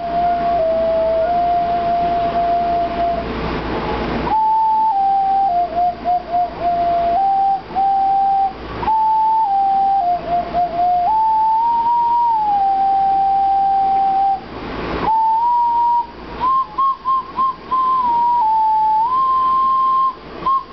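Small pendant ocarina playing a slow, simple tune, one pure note at a time stepping up and down. Two brief breaks about four and fifteen seconds in are filled with a short rush of breath noise.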